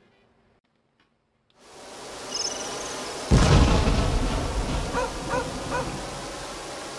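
Korg Pa3x arranger keyboard playing a sound-effect patch: after a moment of silence a hiss swells in, a sudden loud boom like thunder hits about three seconds in, then a steady hiss carries on with three short chirps.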